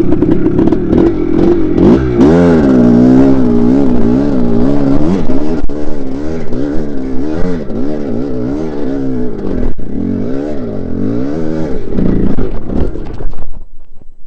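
Dirt bike engine held at high revs, then revved up and down over and over as the throttle is worked on and off. It drops away sharply near the end.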